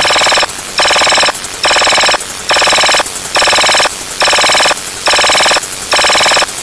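Loud electronic ringtone-like sound effect repeating in short bursts, eight times, a little faster than once a second, each burst about half a second long with brief gaps between.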